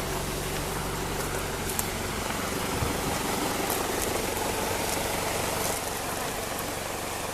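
Vehicle engine idling with a steady low hum, over the even rushing of a waterfall.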